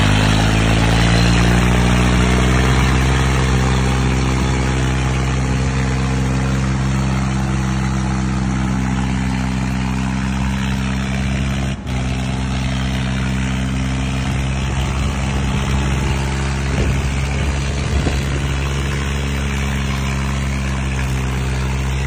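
Two diesel tractor engines, a Swaraj and a John Deere, running hard under full load in a tractor tug of war. Their pitch sags over the first few seconds as the engines lug down, then holds steady, with a brief drop-out about twelve seconds in.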